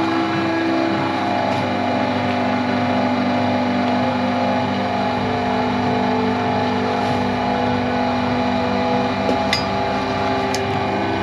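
Creworks electric wire stripping machine running steadily, its motor and gear drive humming as cable is fed through it, with a few light clicks near the end.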